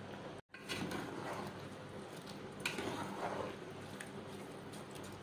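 Faint swishing of long-grain rice being stirred in a pot of water with a spoon, twice, over a steady low hum.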